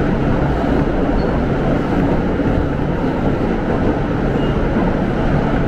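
R160 subway car running through a tunnel between stations, heard from inside the car: a steady rumble with wheel-on-rail noise, even throughout.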